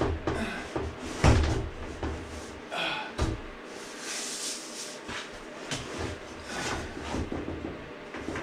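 Knocks and thuds of a slatted plastic wall panel being pushed and bumped into place against a truck box's wall and ceiling, the loudest about a second in, with a short scraping rustle around four seconds in.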